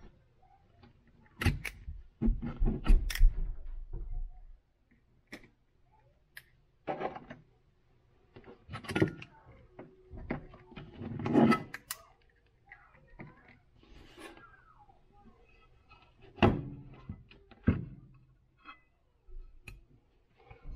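Soft plastic bait molds handled and opened on a workbench: scattered knocks and clacks in small clusters, with quiet pauses between.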